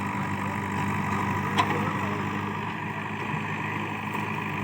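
JCB 3DX backhoe loader's diesel engine running steadily, with a single short sharp click about a second and a half in.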